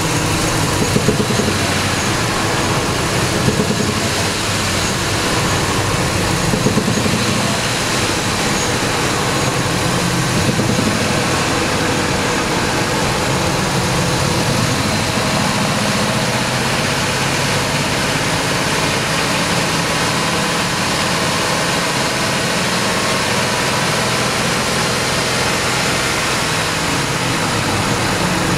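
Ford 5.4 Triton V8 engine running, with a few brief louder spots in the first ten seconds, then running steadily. It is an engine that still knocks when revved after years without oil changes; metal shavings were found in its oil pan.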